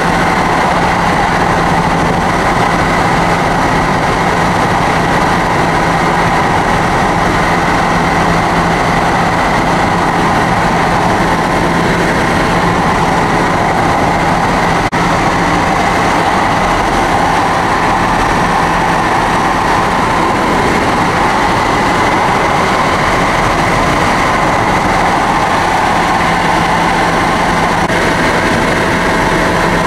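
Helicopter in flight heard from inside the cabin: the steady, loud drone of the turbine engine and rotors, with a constant low hum under it. There is a brief dropout about halfway through.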